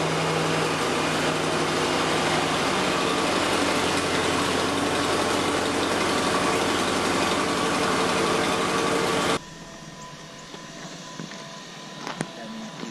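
1950s Massey Ferguson tractor's engine running steadily while the hydraulic three-point hitch lifts a loaded rear ballast box, its note shifting about three seconds in. About nine seconds in it cuts off suddenly, leaving a much quieter outdoor background with a few faint knocks.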